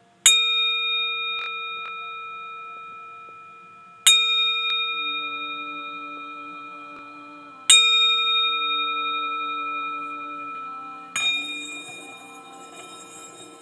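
Tibetan singing bowl struck three times with a wooden mallet, about every four seconds, each strike ringing out in several clear tones that slowly fade. Near the end a lighter knock as the mallet meets the rim again, followed by an unsteady, rattly ring.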